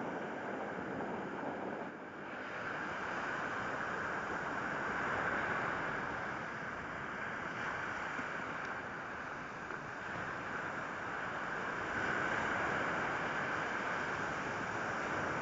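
Steady wash of sea waves mixed with wind blowing on the microphone, with no distinct events.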